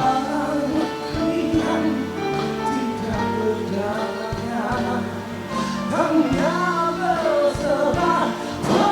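A pop ballad playing: sung vocals with harmonising backing voices over a steady instrumental accompaniment.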